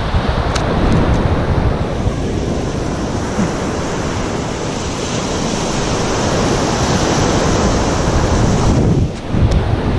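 Waves washing onto the beach, mixed with steady wind rumble on the microphone; the rush drops away briefly near the end.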